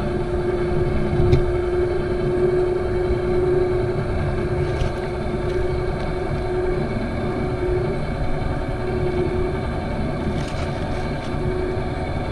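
Craftsman battery-powered caulk gun's motor running steadily at speed setting 2, pushing caulk out in a long bead: a steady hum that falters briefly a few times in the second half.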